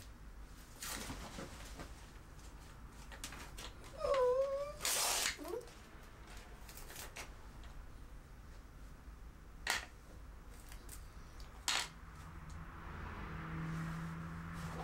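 A cat meows once, a short wavering call about four seconds in, followed at once by a brief rustling noise.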